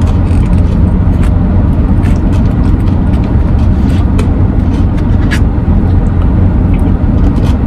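Steady low rumble of a vehicle, heard from inside its cabin, with a few light clicks scattered through it.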